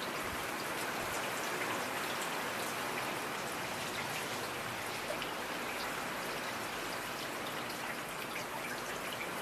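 Steady rain falling, a dense even hiss with many small drop ticks spattering on surfaces.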